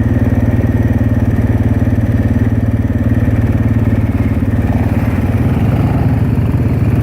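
Honda 400EX ATV's single-cylinder four-stroke engine running loud at steady, even revs, its rapid firing pulses holding one pitch.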